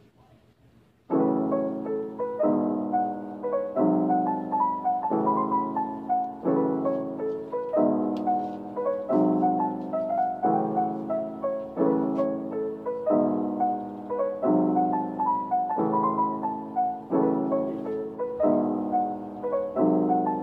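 Background piano music that comes in suddenly about a second in, after near silence, with a chord struck about once a second under a simple melody.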